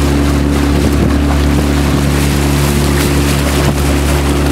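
Outboard motor running at a steady speed as a small boat travels across a lake, with a steady rush of wind and water.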